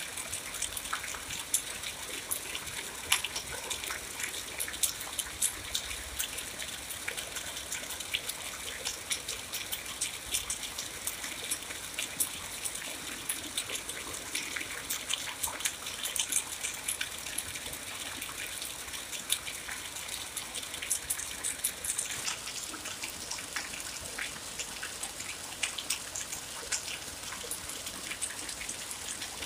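Steady rain: an even hiss thick with many sharp, close drop impacts.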